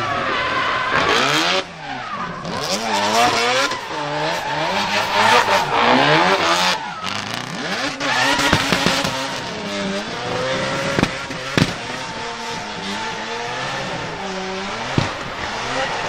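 Nissan Silvia S15's twin-turbo four-rotor rotary engine revving up and down hard as the car drifts, with the rear tyres squealing and spinning. A few sharp cracks in the second half.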